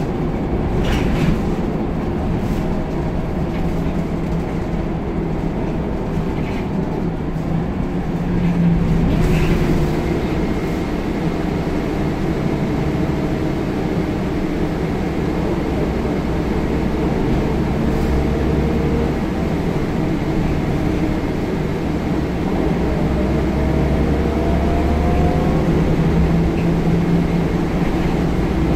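Scania L94UB bus heard from inside its cabin while driving: a steady low drone of the rear-mounted diesel engine and road noise, with a drivetrain whine that rises in pitch a few times as it accelerates. A few short rattles or knocks come through, one about nine seconds in.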